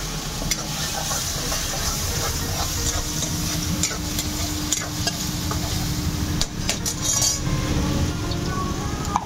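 Hot oil sizzling in a steel frying pan as a ladle stirs and scrapes it, with scattered clinks of metal utensils against pans and tins.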